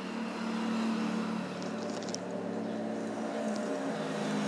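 Chopped tomatoes and onions sizzling in hot oil in a pressure cooker as a steel ladle stirs them, with a few light clicks of the ladle against the pot about two seconds in. A steady low hum runs underneath.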